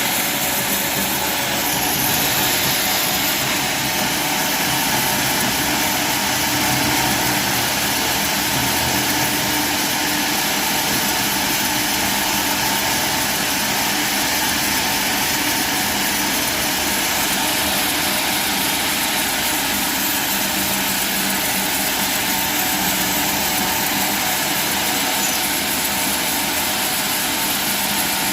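Sawmill machinery running: a loud, steady mechanical noise that holds an even level throughout.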